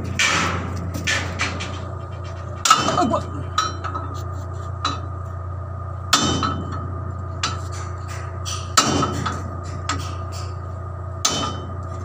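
Hammer blows ringing on the steel of a bulldozer track being taken apart: a loud strike about every three seconds with lighter knocks between, over the steady low hum of a running engine.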